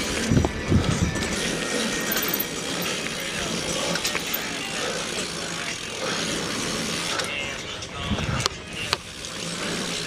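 Single-speed mountain bike ridden over a dirt trail: steady tyre and rattle noise with mechanical clicking, and a few louder knocks over bumps, about half a second in and again near the end.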